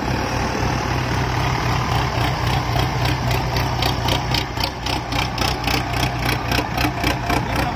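Diesel engines of two Indo Farm 3055 tractors running steadily at low speed as the tractors circle each other. From about two seconds in, a fast, regular clicking, about four a second, rides on top of the engine sound.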